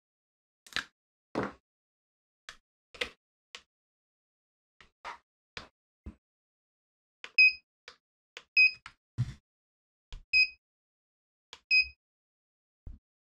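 Scattered sharp clicks and knocks of a gas blowback airsoft pistol and tools being handled. From about seven seconds in come four short electronic beeps, each at the same two pitches and each with a sharp click, typical of button presses on a digital trigger pull gauge being set up.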